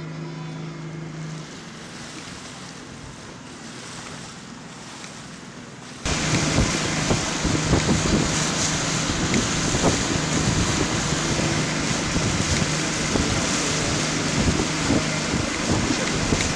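Wind buffeting the microphone and water rushing past a moving boat, over the steady low hum of a boat's motor; the wind and water noise comes in suddenly and much louder about six seconds in.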